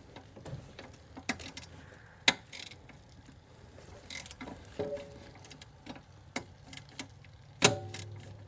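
Socket ratchet clicking in short irregular strokes and metal tools tapping on the engine while working a turbo bolt, with a sharp click a little after two seconds and a louder ringing metal clank near the end.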